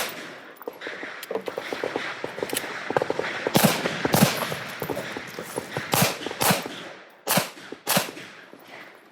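Gunshots, several sharp cracks coming in pairs about half a second apart, with fainter shots scattered between them.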